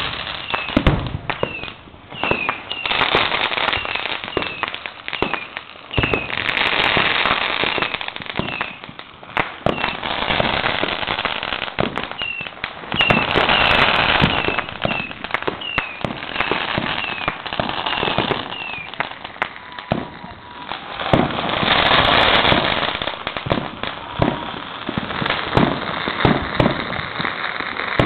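Fireworks and firecrackers going off, a dense run of sharp cracks and crackling. Short falling whistles repeat about twice a second through parts of it.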